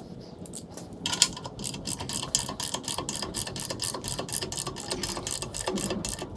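Hand ratchet wrench being cranked, a fast even clicking of about five or six clicks a second that starts about a second in.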